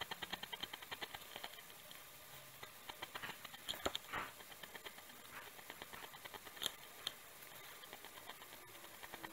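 Quick, short strokes of a drawing tool on paper, heard as light scratchy ticks: a fast run of them in the first second and a half, then scattered strokes with a few sharper taps.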